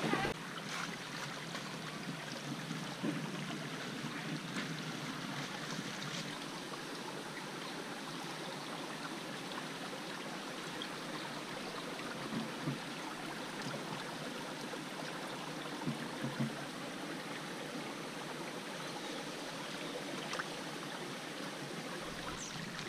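Shallow stream running over gravel and stones: a steady, even rush of water, with a few faint knocks.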